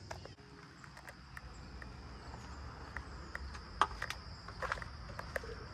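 Footsteps on a gravel path with irregular clicks and knocks, the sharpest about four seconds in, over a steady high insect drone.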